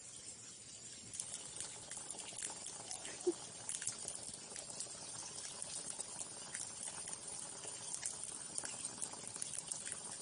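Spring water running from a stone spout and splashing on the stone below, a steady trickle full of small splashes and drips.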